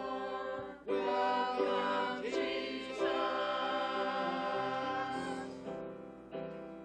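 Small mixed choir of men's and women's voices singing a sustained, slow song in parts. There is a brief pause just before the first second, and the singing fades away near the end.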